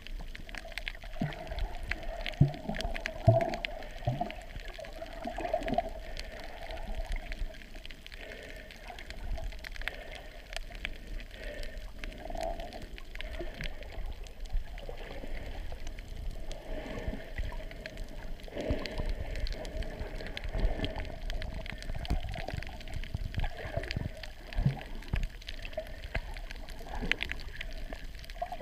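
Muffled underwater sound picked up by a small camera submerged while snorkeling: water gurgling and sloshing around the camera, with a steady drone and scattered low knocks.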